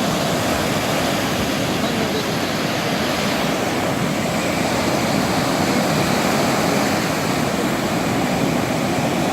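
Rough sea surf breaking on a beach: a steady, unbroken rush of waves.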